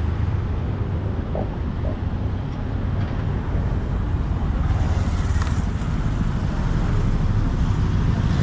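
Wind buffeting the microphone over a steady low rumble of road traffic, heard while riding among cars and motorbikes.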